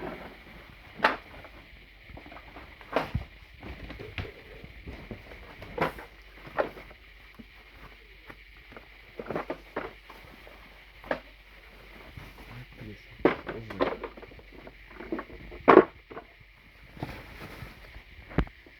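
Irregular plastic clicks and knocks from handling and fitting the attachments and parts of a Bissell 2161e vacuum cleaner while it is switched off. The loudest knock comes near the end.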